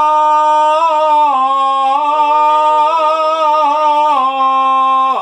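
A woman chanting in shigin style, holding one long drawn-out note with a wavering ornament. The pitch steps down about a second and a half in, rises again, steps down near four seconds, and drops lower at the very end.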